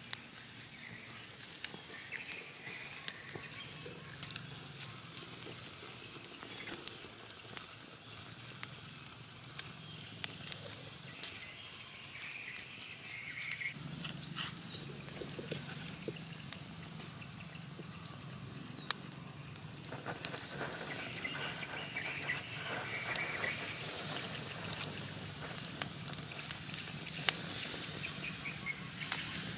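Small wood fire crackling under a wire grill of crabs, with sharp pops scattered throughout. About two-thirds of the way in, a louder sizzling hiss builds as the grilling crabs are basted with sauce. Birds call faintly in the background.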